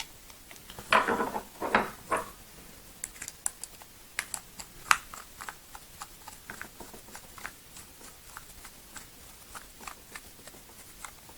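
Light metal-and-polymer clicks and taps of a pistol grip panel and its screws being handled and fitted onto a CZ 75 SP-01 frame. A few louder knocks come about a second in, followed by many small scattered ticks.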